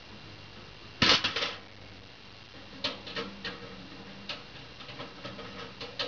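The spring-loaded metal door of a wire-mesh live mouse trap snaps shut about a second in, a sharp metallic clatter: the mouse is caught. Afterwards come irregular light clicks and scratches as the trapped mouse moves about inside the wire cage.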